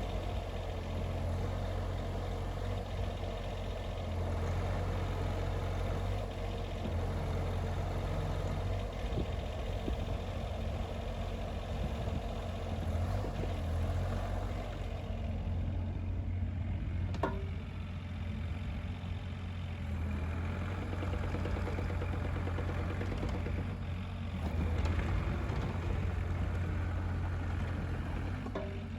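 Diesel engine of a Bobcat E35 mini excavator running steadily, with a slight rise in level about 25 seconds in and a single click about 17 seconds in.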